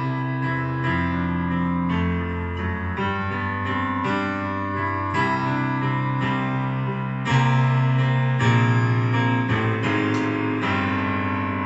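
Electronic keyboard played in a piano voice: sustained chords that change about every second, with a louder chord coming in about seven seconds in.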